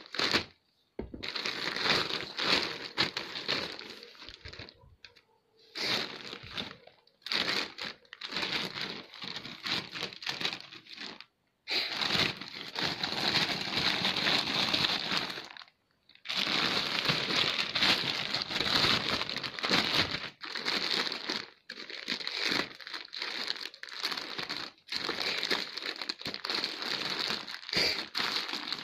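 Plastic courier mailer bag crinkling and tearing as it is pried and ripped open by hand, in irregular bursts broken by short silent gaps.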